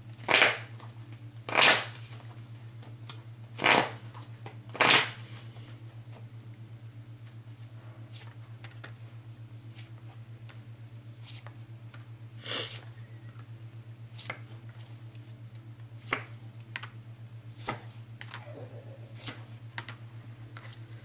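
Tarot cards being shuffled and handled. Short loud riffles and snaps come about five times in the first five seconds and once more around the middle, with fainter card sounds later. A steady low hum runs underneath.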